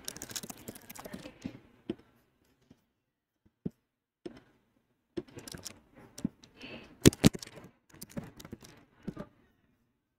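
Keystrokes on a computer keyboard: scattered, faint taps with gaps between them, and a few louder taps about seven seconds in.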